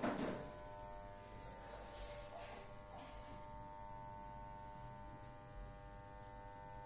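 Faint steady electrical buzz made of several even tones, in the manner of mains hum, with a brief soft knock at the very start.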